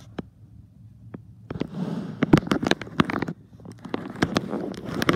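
Small plastic toy-train parts and wires being handled, making a rapid run of sharp clicks and rustling that starts about a second and a half in, with a brief lull just past the middle.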